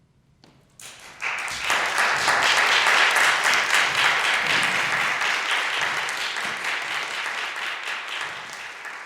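Audience applauding after the final note of a flute ensemble piece; the clapping breaks out about a second in, swells quickly and then slowly tapers off.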